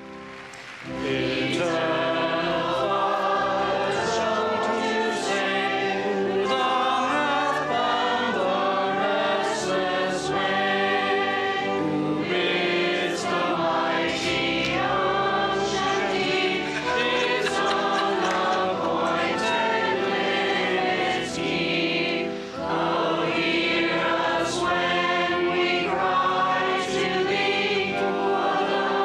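A choir singing a hymn, starting softly and swelling to full voice about a second in.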